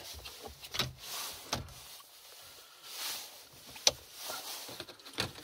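Plastic dashboard trim being worked by hand: about four sharp plastic clicks, the loudest near the end, with soft rustling and scraping between them.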